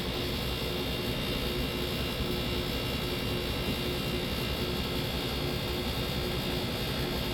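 1999 Whirlpool 12,000 BTU window air conditioner running on cool: its fan blows a steady rush of air over the compressor's hum, with a faint steady tone under the noise.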